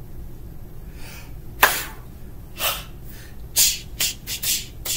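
A person making pretend crying sounds: short breathy sniffs and sobs without voice, about seven of them, coming closer together toward the end.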